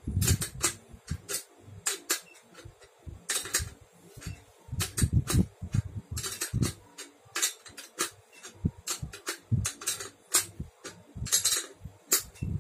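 Irregular metallic clinks and knocks of balance-bike parts being handled while a wheel is fitted by hand at its hub, some in quick runs.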